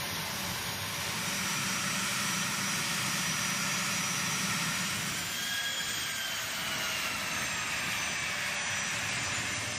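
Jet aircraft engines running: a steady rushing noise with faint high whines, one of them sliding slowly downward in pitch from about halfway through.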